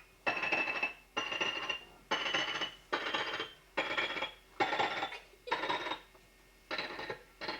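A sampling keyboard plays a stored sound as a run of about eight short notes, roughly one a second, each a step higher in pitch than the last, like a rising scale.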